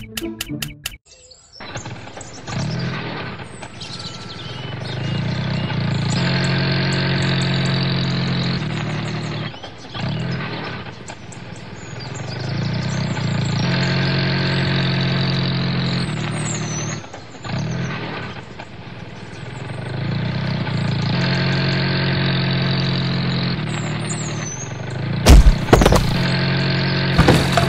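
An engine running in a repeating cycle, building up, holding steady, then dropping away, about every seven seconds. A few sharp loud knocks come near the end.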